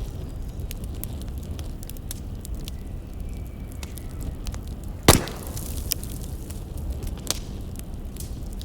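Burning firewood crackling, with scattered small pops over a low steady rumble and one loud sharp pop about five seconds in.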